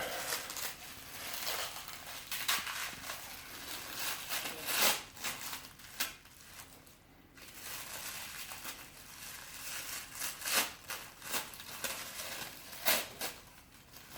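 Packing wrapping being crinkled and torn as a toy is unwrapped by hand: irregular rustling and crackling, with a few louder rips.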